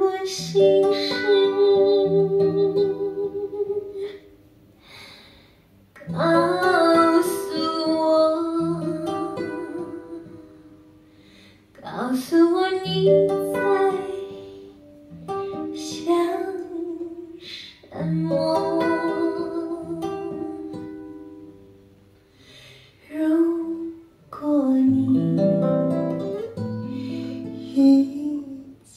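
Recorded playback of a Mandarin ballad through a Perreaux SA35 preamp and 2370 power amplifier driving stand-mounted Qinsound speakers, heard in the room: guitar accompaniment under a lead melody that comes in phrases about six seconds apart, each swelling and then fading.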